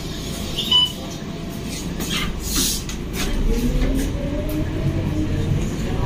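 Bus cabin noise: steady engine and road rumble, with a short electronic beep just under a second in. About three seconds in it gets louder and a rising whine comes in as the bus speeds up.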